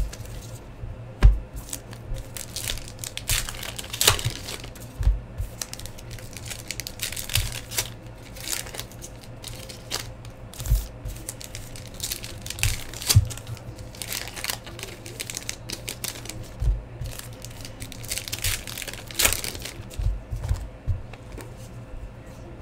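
Plastic wrapping and card packs crinkling and tearing as a hobby box of trading cards is opened and its packs are handled, with scattered light thumps.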